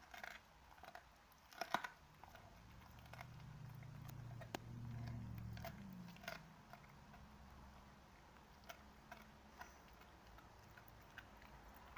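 Dogs chewing on a cat carcass: scattered, irregular crunching bites, faint, with a low hum for a couple of seconds midway.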